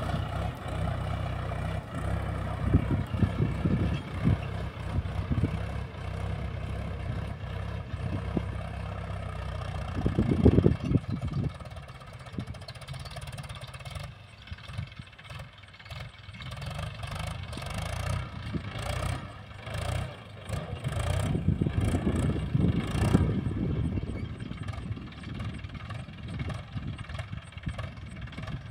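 Mahindra farm tractor's diesel engine running steadily as it pulls a cultivator through a field. It grows fainter about halfway through, then louder again.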